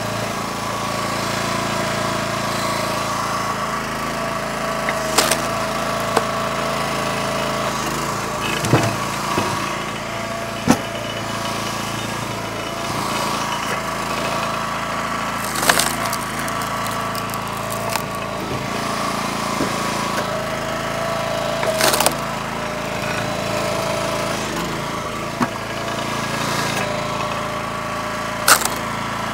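Split-Fire 3490 two-way log splitter's fuel engine running steadily under the work, with about six sharp cracks and knocks of firewood being split and handled.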